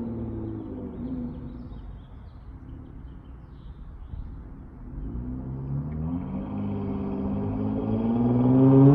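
Dodge Charger GT's exhaust through dual Flowmaster 40 mufflers: the note falls away as the throttle is lifted, runs low and quiet for a few seconds, then climbs steadily in pitch and loudness under acceleration, loudest right at the end.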